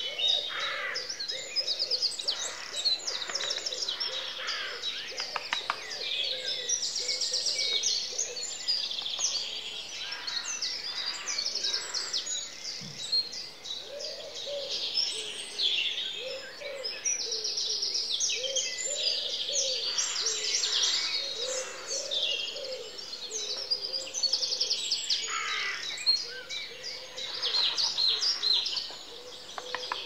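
Several woodland songbirds singing over one another in a dense chorus of high, quick, trilling phrases. From about halfway through, a lower call repeats again and again beneath them.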